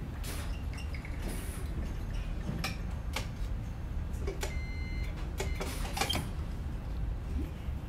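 Heat-sealing unit of a wetsuit seam machine running with a steady low hum as it melts the fray-prone thread ends of a stitched neoprene seam. Scattered clicks come from the machine and the handled suit, with a short high squeak about halfway through.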